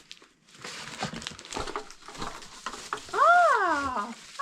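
Crinkling packaging as a boxed battery charger is handled and unwrapped. About three seconds in comes a loud, high call that rises and then falls in pitch.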